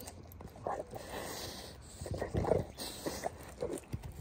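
A Rottweiler chewing and gnawing on a raw meaty bone, with irregular wet crunches and the dog's breathing between them.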